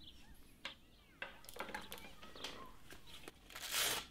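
Soft rustling and handling noises with a few faint bird chirps in the background, and a louder rustle lasting about half a second near the end.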